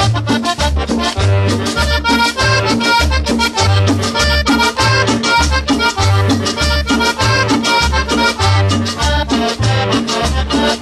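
Cumbia music: a two-note bass line repeating steadily under dense, even percussion and a melodic lead.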